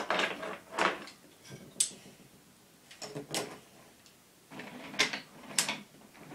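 Toy trains and track pieces being handled: a string of short knocks and rattles, with a sharp click a little under two seconds in.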